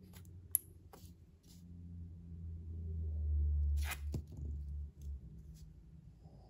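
Light clicks and taps of a small plastic dropper bottle and a stone scratch plate being handled on a tabletop, with a sharper knock about four seconds in. Under them a low rumble builds in the middle and fades out about five seconds in.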